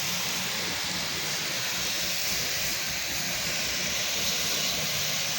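Pressure washer running steadily, its wand giving a constant spray hiss while applying a downstream-injected bleach and surfactant soft-wash mix.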